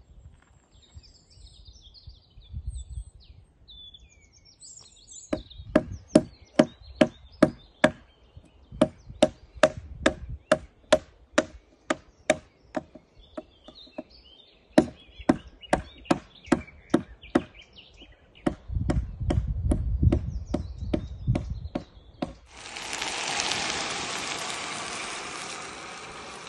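Repeated chopping strikes on wood, about two a second, each with a short ringing note, broken by pauses. Birds chirp before the strikes begin, and near the end a steady rushing hiss starts.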